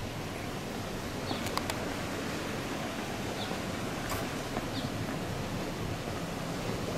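Outdoor ambience: a steady rumble of wind on the microphone, with a small bird giving short high chirps every second or two.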